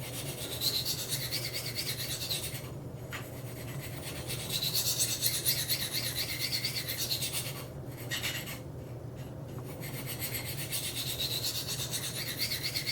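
Knife blade being stroked freehand up and down a Spyderco Sharpmaker medium ceramic stone: a rapid, even rasping of steel on ceramic in three long runs of strokes with brief pauses between, polishing the edge after a burr has been raised.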